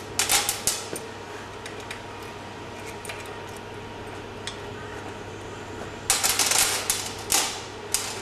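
Small metal bicycle brake parts (the original booster, clamps and bolts) clinking and clattering as they are handled during removal. There is a short flurry of clicks at the start and a longer run of clinks about six seconds in.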